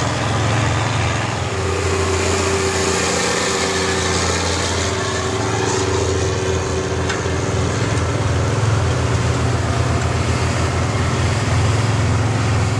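Large diesel tractor engine running steadily at a low, even speed.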